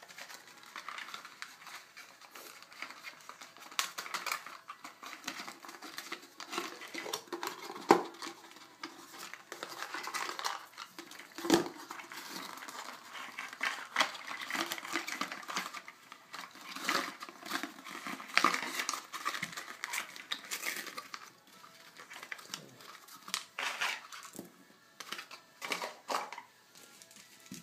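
Hands handling a cardboard jewellery box, its foam insert and a bead chain: irregular rustling and scraping with light clicks and knocks, the two sharpest knocks about 8 and 11 seconds in.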